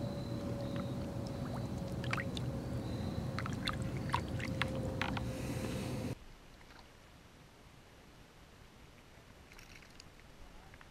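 Lake water sloshing and dripping beside a kayak as a hand holds a chain pickerel in the water to release it, with scattered small splashes and clicks over a faint steady hum. About six seconds in, the sound cuts off abruptly to a much quieter open-water background.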